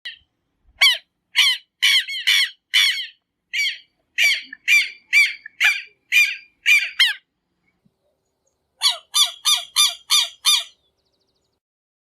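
Southern lapwing (tero) giving its harsh, strident alarm calls: about a dozen loud calls at roughly two a second, then after a short pause a quicker run of six.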